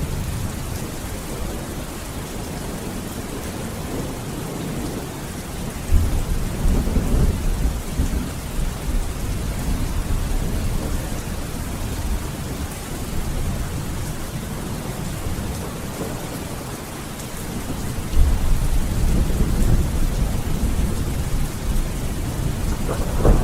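Steady rain falling, with two sudden low rumbles: one about six seconds in and another about eighteen seconds in, each lasting a few seconds.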